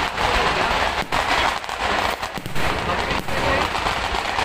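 Festival fireworks going off in a rapid, continuous barrage of bangs and crackling.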